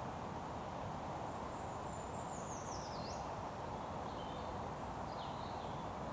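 Steady outdoor background noise, with a small songbird singing faintly: a run of high notes falling in pitch a little over a second in, then a few short chirps.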